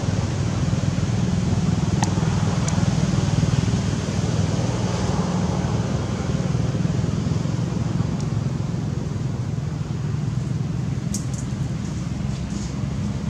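Steady low rumble of background noise, with a few faint sharp clicks about two seconds in and again near the end.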